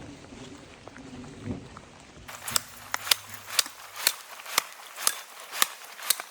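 Footsteps crunching in snow at a steady walk, about two steps a second, starting a little over two seconds in. Before them, a low rumble of thunder and rain dies away.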